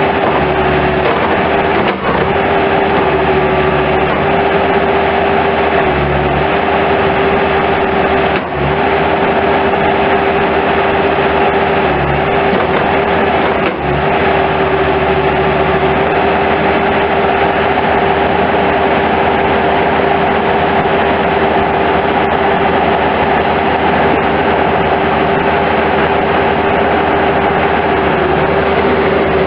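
Diesel engine of a 2005 Bobcat S185 skid steer loader running steadily, with a strong steady whine over the engine noise and a few brief dips in sound.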